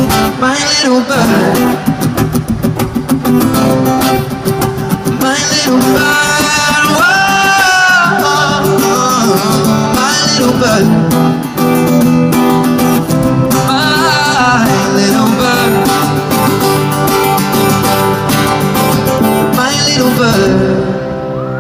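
Live acoustic guitar and singing playing the closing section of a song, with long sustained notes, fading out near the end.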